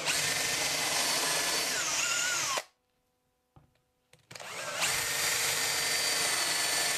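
Makita cordless drill running under load into the edge of a plywood cabinet top, in two spells of steady whine, each dipping in pitch near its end as the motor loads up, then stopping. It is fastening the top with screws.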